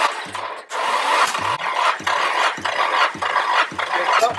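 Nissan SR20DE four-cylinder engine cranking over on its starter motor for a compression test: a steady starter whir with a low chug about twice a second as the cylinders come up on compression, and a brief break about half a second in.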